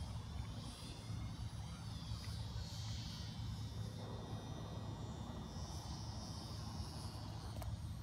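Small electric motor and propeller of a styrofoam remote-control airplane in flight, a faint high whine that rises and falls in pitch as the plane turns and passes, over a steady low rumble.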